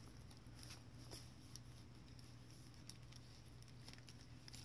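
Near silence: a faint low hum with light, scattered ticks of fingers handling the paper pages of a handmade journal.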